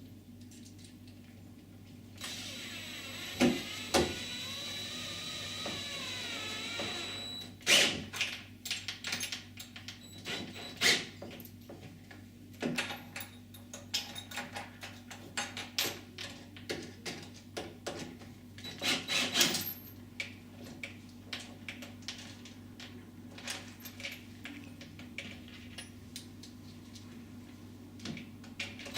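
Cordless drill-driver running for about five seconds, driving a direct-fix screw through the UPVC door frame into its steel reinforcement. Scattered clicks and knocks of handling follow.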